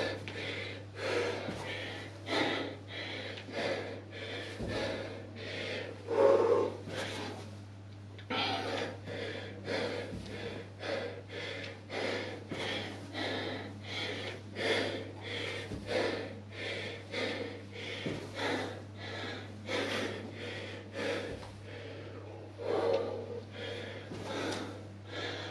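A man breathing hard and fast from exertion during side-to-curtsy lunges, short loud breaths a little more than once a second, over a steady low hum.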